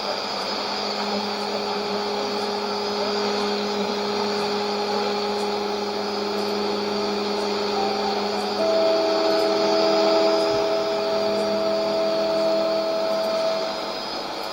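Shortwave radio reception of a transmitter's test signal: steady test tones over hiss and static, heard through a Sony ICF-2001D receiver. A higher tone joins about eight seconds in and stops shortly before the end.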